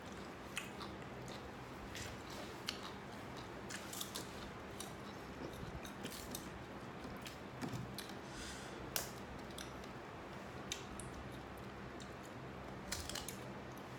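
A person chewing mango and handling the slices in a plastic basket: scattered faint clicks and smacks over a low steady hum.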